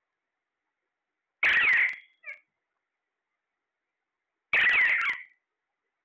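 Alexandrine parakeet giving two loud calls, each about half a second long and about three seconds apart, with a short faint call just after the first.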